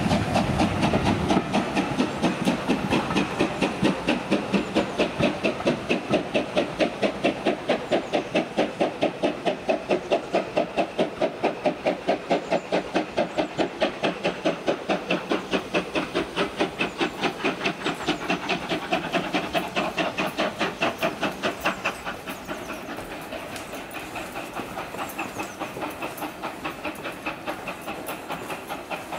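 Steam locomotive exhaust chuffing in a fast, even beat as it works a train, with steam hiss. It drops to a softer beat about 22 seconds in.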